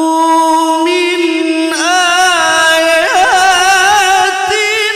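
A male qari's voice reciting the Quran in the melodic tilawah style. He holds one long note, then re-enters at a higher pitch about two seconds in and goes on with wavering, ornamented turns.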